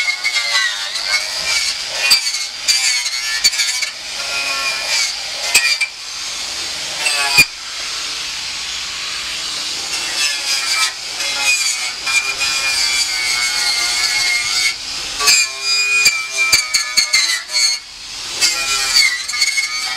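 Background music with a high, wavering melodic line and scattered clicks.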